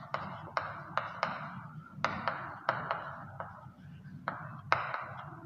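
Chalk writing on a chalkboard: about a dozen sharp taps, irregularly spaced, with scratchy strokes between them.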